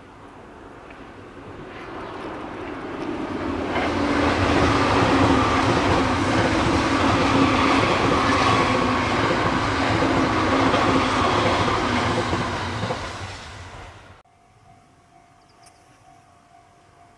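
E353 series electric limited express train approaching and passing: its running noise grows over the first few seconds, stays loud for about ten seconds, then fades. The sound cuts off suddenly near the end, leaving only a faint background with a thin steady tone.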